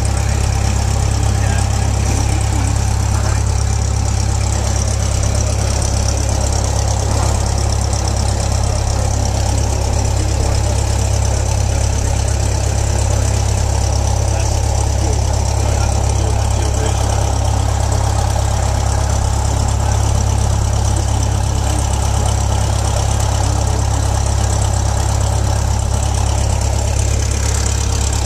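Light single-engine airplane's piston engine and propeller running steadily at low power while taxiing, heard from inside the cabin as an unbroken low drone.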